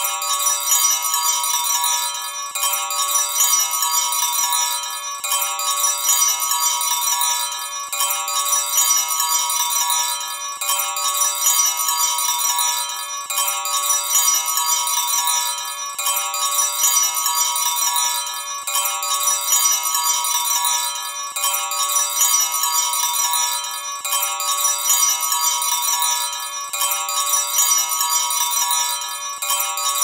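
Small Christmas bells ringing and jingling continuously in a bright, dense shimmer of overlapping tones. The sound swells and eases in a repeating cycle of about two and a half seconds.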